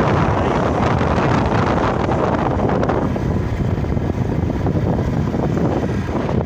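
Wind buffeting the microphone from a moving vehicle, over a steady low rumble of engine and road noise; the harsher upper part of the noise eases after about three seconds.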